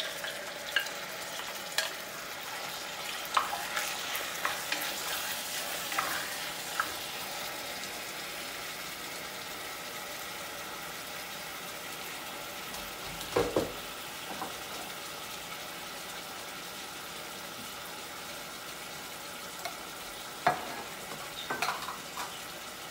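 Cubed raw chicken breast sizzling steadily in a little hot oil in an enameled cast-iron pot, seared before the stew goes on. A wooden spoon knocks against the pot a few times near the start, about halfway and near the end.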